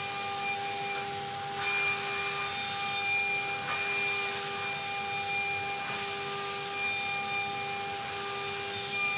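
Solid carbide T-slot cutter spinning at 24,000 rpm in a CNC machining centre, taking a light finishing pass through A7075 aluminium. It makes a steady high whine over the hiss of cutting, swelling slightly in loudness a couple of times.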